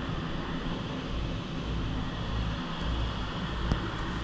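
Steady low rumble with a constant hum underneath, even throughout, and one faint tick near the end.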